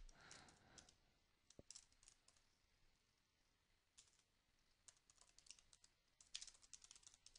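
Faint typing on a computer keyboard: scattered single keystrokes, then a quick run of them about six seconds in.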